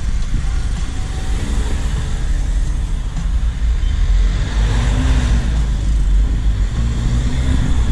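Light cargo truck driving along, its engine running with road noise: a steady low rumble.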